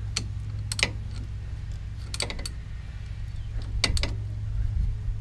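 Ratchet and 10 mm socket clicking in a few short bursts while the two drive-sprocket bolts on a 150cc pit-bike engine are tightened down, over a steady low hum.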